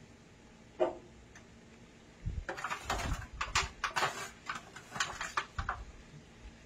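Handfuls of chopped raw collard greens being scooped out of a disposable aluminium foil pan and dropped into a stainless steel pot: leafy rustling mixed with the crinkle of the thin foil pan. A single knock comes about a second in, then a dense run of rustling from about two seconds in until shortly before the end.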